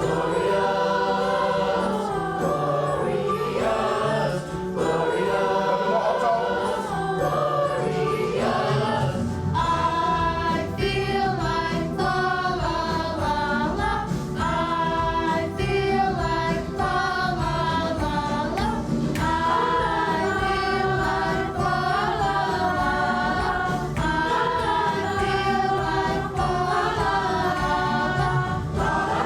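Middle-school chorus singing together over a musical accompaniment, with a fuller low bass part coming in about nine seconds in.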